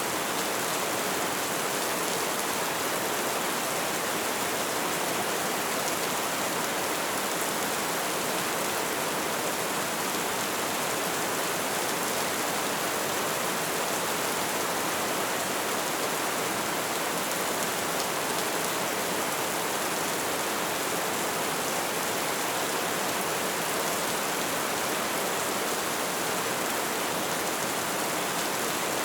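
Steady rain falling, an even, unbroken hiss with no thunder or single drops standing out.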